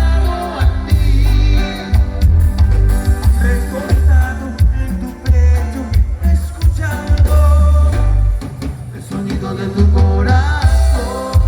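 A song playing: singing over a strong, pulsing bass line.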